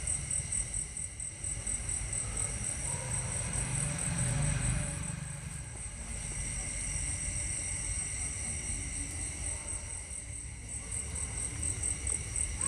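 Insects chirring outdoors: a steady, high, rapidly pulsing trill, over a low rumbling noise that swells a few seconds in.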